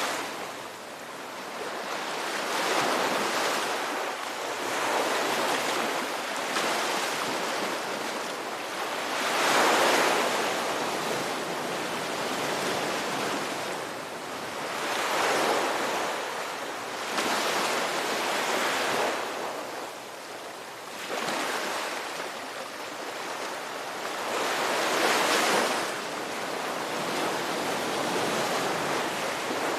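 Ocean waves breaking and washing up the shore, one swell of surf every few seconds, with the loudest breakers about a third of the way in, at the halfway mark and near the end.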